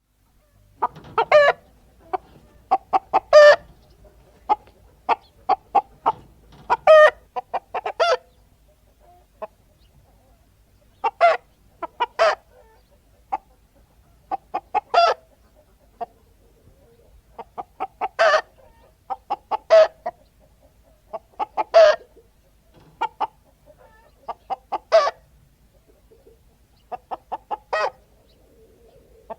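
Chickens clucking: runs of short clucks with a louder call every couple of seconds.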